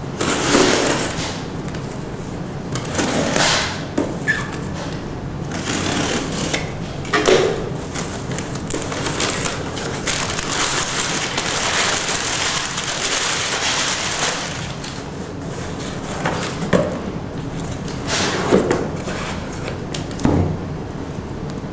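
A cardboard shipping box being unpacked: a utility knife cutting the packing tape, the flaps pulled open, and crumpled brown kraft packing paper rustling as it is pulled out. Near the end, paperback books are set down on a glass tabletop with a few knocks.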